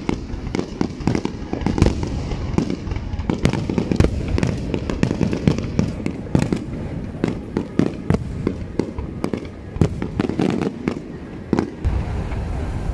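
Aerial fireworks display: many sharp bangs from bursting shells in quick succession, several a second, over a steady low rumble.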